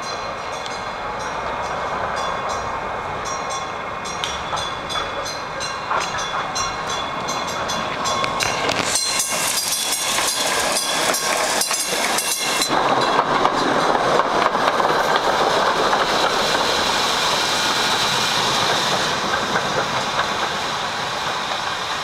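PCC streetcar rolling past close by, its steel wheels clicking over the rail joints. A dense clatter comes about halfway through as the car goes by, then a louder steady rumble and hiss of the running car that fades toward the end.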